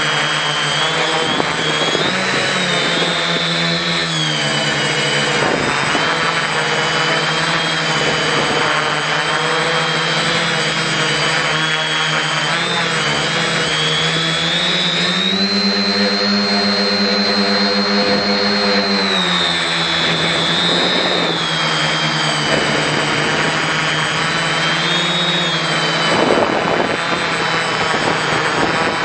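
Quadcopter motors spinning APC 11x4.7 propellers, heard close from the onboard camera: a steady whine that rises in pitch about halfway through, holds for a few seconds, then drops back.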